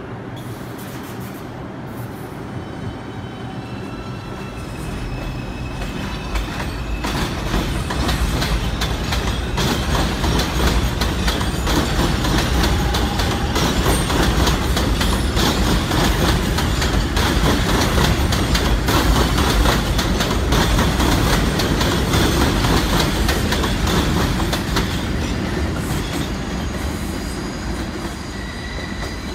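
R142-series New York City subway train pulling out of an elevated station. Its propulsion whine rises in steps as it starts off, then the cars grow loud passing close by with wheels clattering over rail joints and squealing on the curve, fading as the train draws away near the end.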